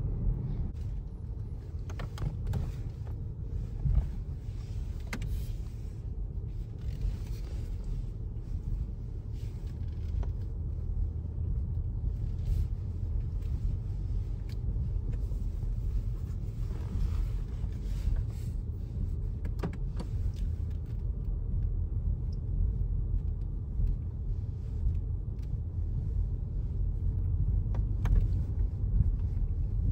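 Low, steady rumble of engine and tyre noise heard inside the cabin of a slowly moving car, with a few faint clicks and knocks now and then.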